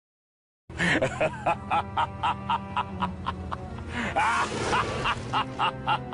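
Short meme music clip with a steady beat, about four hits a second, starting after nearly a second of silence, with a sliding tone about two thirds of the way through.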